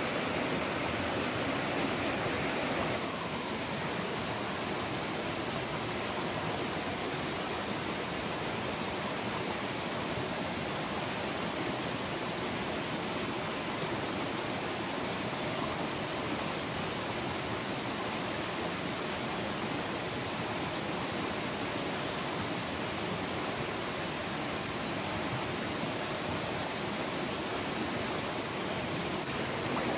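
Shallow rocky stream rushing steadily over stones: a constant, even hiss of flowing water that drops a little in level about three seconds in.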